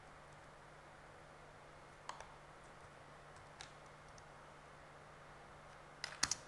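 Sharp clicks from a computer's keys or mouse over a faint steady hum: one click about two seconds in, another a second and a half later, and a quick run of several near the end.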